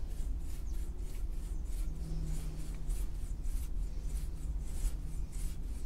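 Brush strokes through a dog's coat: an even, scratchy rubbing at about three strokes a second.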